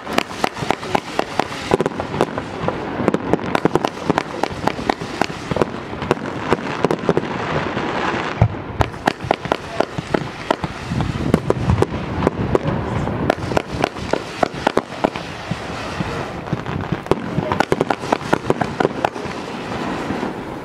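Low-noise 49-shot 200-gram fireworks cake with 20 mm tubes firing shot after shot: a rapid, uneven stream of small pops over a steady hiss, with no loud bursting reports.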